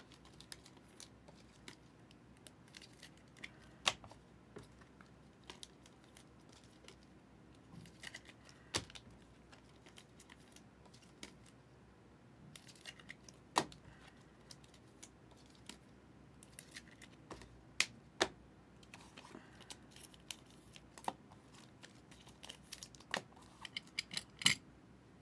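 Optic football trading cards being handled and flipped through: soft sliding and rustling of cards, with scattered sharp clicks and snaps, about a handful of louder ones spread through.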